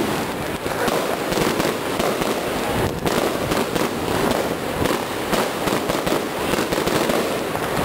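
Fireworks going off in a rapid, unbroken crackle of overlapping pops and bangs, with one sharper crack about three seconds in.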